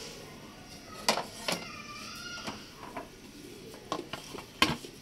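A few sharp clinks and knocks of dishes and plates being handled on a kitchen counter, the loudest about a second in and again near the end. A faint high, gliding voice-like sound comes between them.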